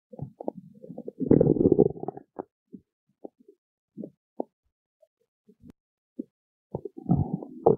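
Stomach growling: a long gurgling rumble about a second in, scattered small gurgles and pops, then another rumble near the end.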